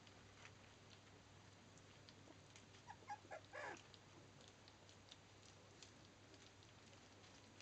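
Labrador puppies about two and a half weeks old giving two or three short, faint whimpering squeaks about three seconds in, amid soft scattered clicks of pups licking food from a dish. The whimpers are the moaning of pups with full tummies after their first solid feed.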